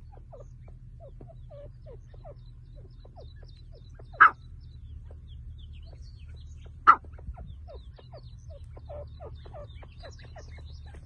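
A francolin (teetar partridge) gives two loud, short calls, about four and seven seconds in, among many soft, quick chirps from other birds, over a steady low hum.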